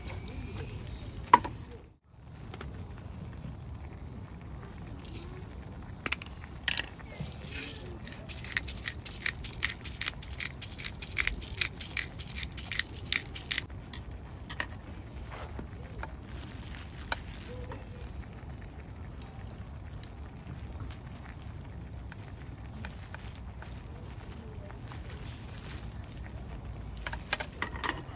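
Insects trilling in one steady, unbroken high tone, with a run of light sharp clicks and taps from about 6 to 14 seconds in.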